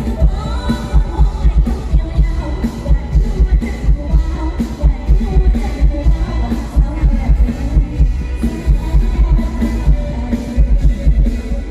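Thai klong yao long-drum ensemble playing a steady, dense drum beat with a singing voice over it.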